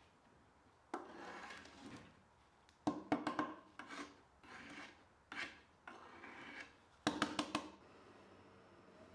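Hand scraper pushing paint softened by paint stripper off a wooden dresser top, in a run of separate scraping strokes. There are clusters of sharp clicks about three seconds in and again about seven seconds in. The strokes stop about eight seconds in.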